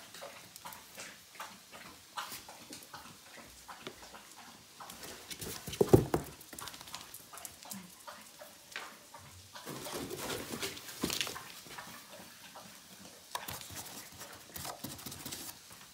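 Puppies scrabbling and tumbling in a torn cardboard box: claws scratching and cardboard rustling and knocking in quick irregular clicks. There is a loud thump about six seconds in and a busier burst of scrabbling around ten to eleven seconds.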